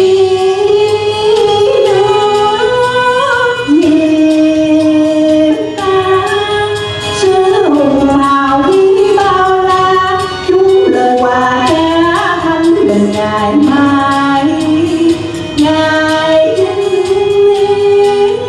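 Woman and man singing a Vietnamese song as a duet through microphones, with long held notes that step up and down in pitch.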